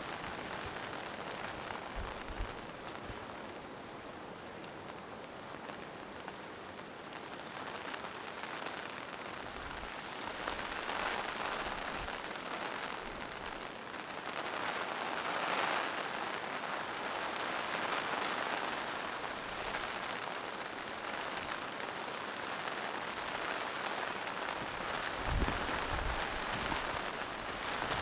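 Steady rain falling in a forest, growing heavier about a third of the way in and staying so, with a couple of brief low thuds.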